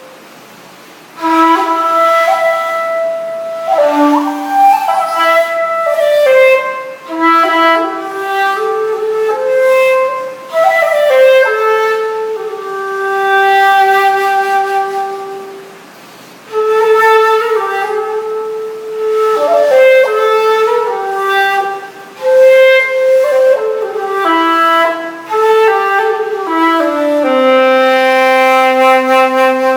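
Taiwanese Tang-style shakuhachi (end-blown bamboo flute) playing a slow solo melody in long phrases. There are short breath pauses about a second in, around 16 s and around 22 s, and the last phrase settles on a long held low note near the end.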